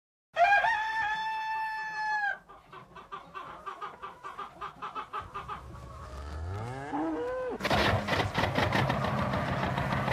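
A rooster crows once, a long call lasting about two seconds, followed by hens clucking in a quick run of short clucks. Near the end an engine starts with a rising whine and settles into a steady low running rumble.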